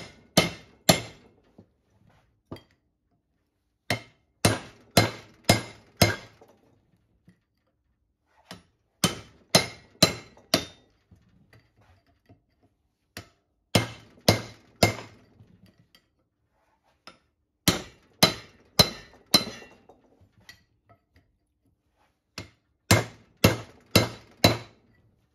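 Hand hammer striking a steel chisel held against the old bearing on a Chrysler 8 3/4 drive axle shaft, to work the bearing off. The blows come in six bursts of four or five sharp metallic clinks, about two a second, with short pauses between bursts.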